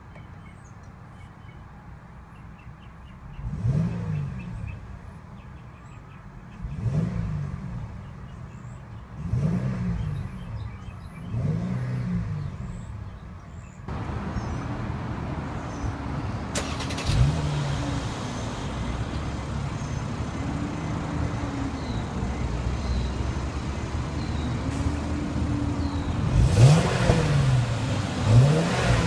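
2014 Mercedes-Benz E350's 3.5-litre direct-injection V6 idling and revved in short blips, each rising and falling in pitch. The first four are heard quieter from inside the cabin; about halfway through the sound turns louder, heard from behind at the dual exhaust tips, with more blips and two sharp ones near the end.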